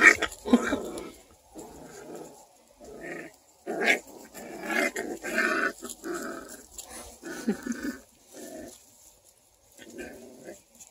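Six-week-old beagle puppies play-wrestling, vocalizing in a string of short, irregular bursts.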